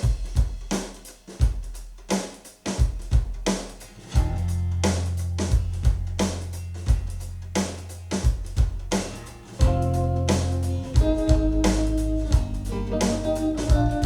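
A recorded pop-rock song playing: a drum-kit intro of kick and snare hits, a bass line coming in about four seconds in, and guitar chords joining near ten seconds in.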